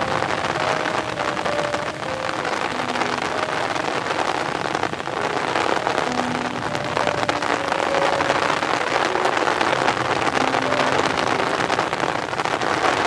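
Heavy rain falling on the open water of a pond, a steady, dense patter of drops.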